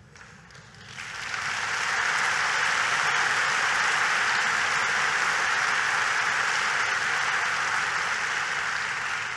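Audience applauding: the clapping swells about a second in, holds steady, and starts to die away near the end.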